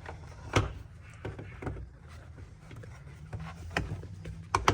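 Scattered clicks and knocks of hard plastic parts being handled as the rear hatch button assembly is fitted into place, the loudest pair near the end, over a low steady hum.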